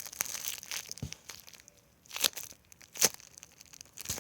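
Clear plastic packaging crinkling and crackling as a packaged memory-foam squishy is squeezed in the hand, with sharper crackles about two and three seconds in.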